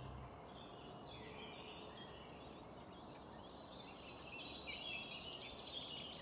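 Faint birds chirping in a background ambience, short high gliding calls that become more frequent about halfway through.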